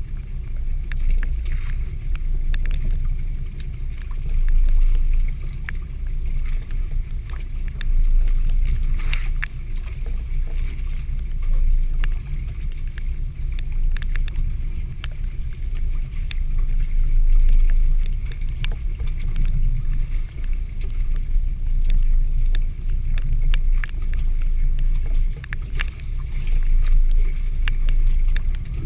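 Low rumble of wind and sea around a small fishing boat at sea, swelling and easing every few seconds, with scattered sharp ticks throughout.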